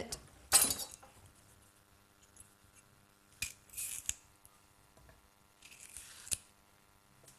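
Banana being peeled by hand: three short tearing sounds as strips of peel are pulled away, the first and loudest just after the start, the others about halfway and near the end.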